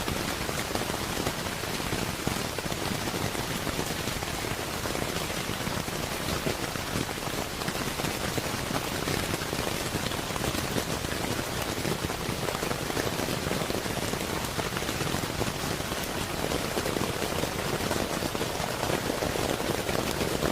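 Steady rain falling on a roof, a dense, even patter of drops.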